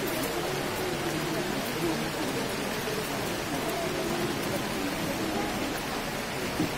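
Steady rain falling, an even hiss with faint voices murmuring underneath.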